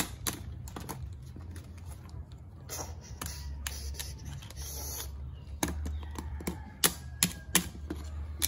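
Irregular tapping and clicking of small toys knocked and handled against a tabletop, over a steady low hum.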